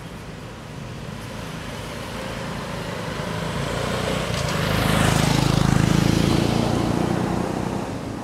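A motor vehicle drives past on the road, growing steadily louder, loudest about five to seven seconds in, then fading near the end.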